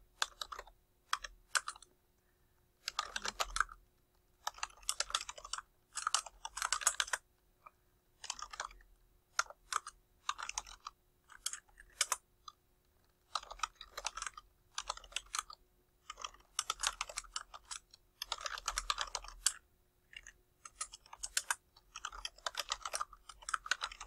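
Computer keyboard typing in quick bursts of keystrokes with short pauses between them.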